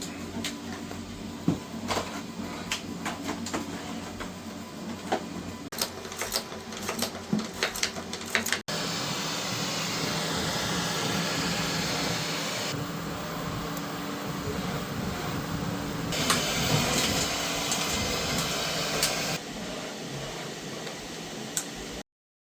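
Laser engraver at work: a steady machine hum with scattered clicks at first, then, after a sudden cut, a louder, even whirring that shifts in tone a few times.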